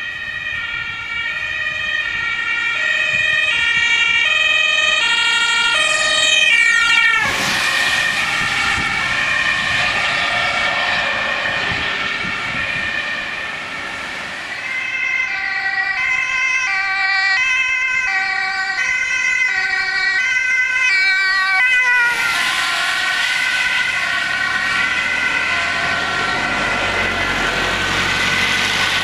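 German two-tone ambulance siren alternating between a high and a low note, growing louder as the ambulances approach. Twice, as an ambulance passes close, its tyres hiss loudly on the wet road and the siren's pitch slides down as it goes by.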